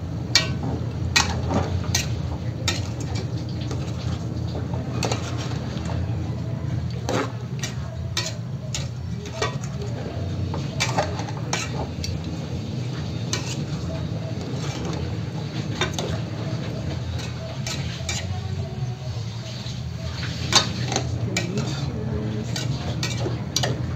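A spoon stirring in an aluminium cooking pot, clinking and knocking against the pot's sides at irregular moments, over a steady low hum.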